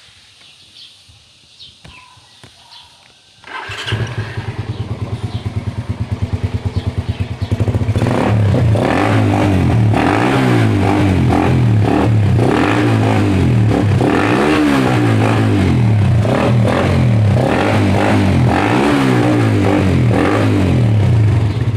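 Suzuki Raider 150 motorcycle's four-stroke single running through an Apido power pipe exhaust. It starts about three and a half seconds in and idles with a steady pulse, then from about seven seconds in it is revved up and down repeatedly in short blips.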